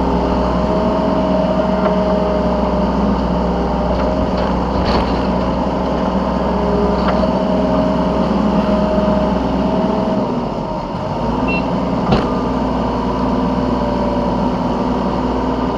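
Yanmar B3 Sigma 3-tonne mini excavator's diesel engine running steadily while it works, its tones shifting as the load changes and dipping briefly about eleven seconds in. A single sharp knock comes just after.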